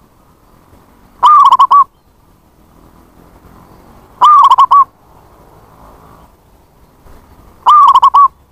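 Zebra dove (perkutut) calling: three short phrases of quick repeated notes, about three seconds apart.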